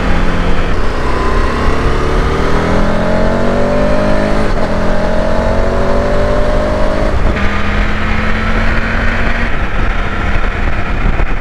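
KTM 1290 Super Adventure's V-twin engine on its standard exhaust, accelerating with the pitch rising. It shifts up about four and a half seconds in and again about seven seconds in, and holds steadier after the second shift.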